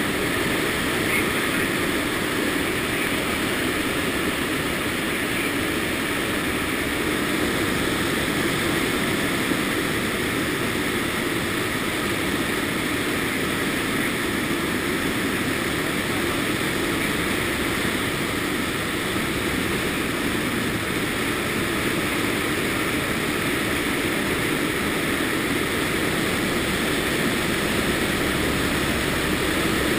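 Lockheed C-130 Hercules in flight, its four turboprop engines and propellers droning steadily, mixed with the rush of air through the open rear cargo ramp.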